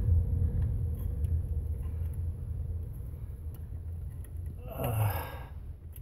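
A sharp, breathy exhale, like a gasp or sigh close to the microphone, about five seconds in, over a steady low rumble that slowly fades.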